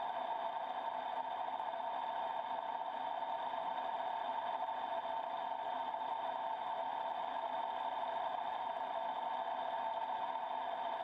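Milling machine set up horizontally, its face-mill cutter taking a steady cut across the intake face of a cast-iron Cummins 5.9 cylinder head to flatten it. An even machining hum with a steady mid-pitched whine.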